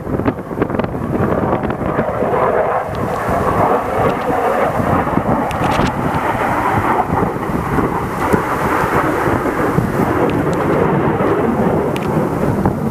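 Fighter jet's engine noise during a display pass: a loud, steady, rumbling jet noise with no speech.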